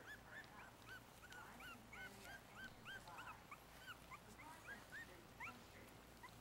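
Four-week-old Yorkshire Terrier puppies whimpering faintly as they feed, in a run of short high squeaks, several a second.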